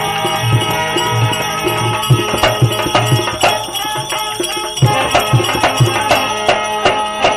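Instrumental break in a devotional bhajan. A hand drum beats a steady rhythm under steady held notes, with jingling percussion. The drum drops out for about a second past the middle, then resumes.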